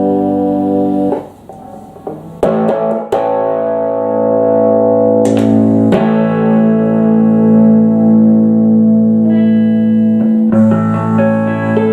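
Electric guitar played through a 1961 Fenton Weill Cornet valve amplifier freshly fitted with new valves: ringing strummed chords with a short drop in level about a second in, several sharp strums, and a run of higher notes near the end before another chord.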